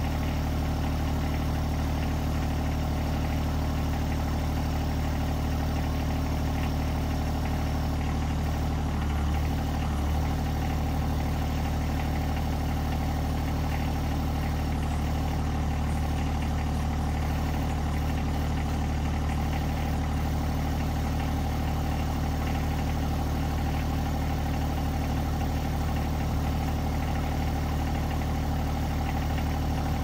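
John Deere 1025R compact tractor's three-cylinder diesel engine idling steadily.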